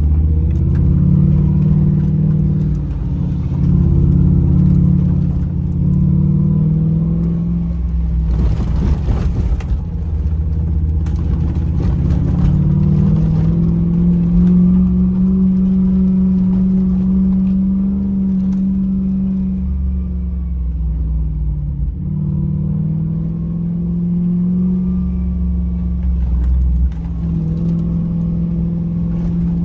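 Car engine running under load, its pitch rising and falling slowly as it revs. A short burst of rushing noise comes about nine seconds in, and a few knocks and rattles follow soon after.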